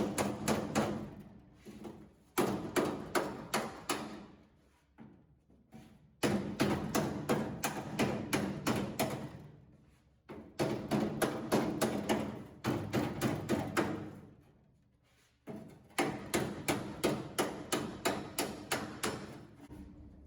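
Hammer blows on a sheet-metal body panel, flattening dents by hammer and dolly. Quick sharp strikes come about four a second in several short runs, with brief pauses between them.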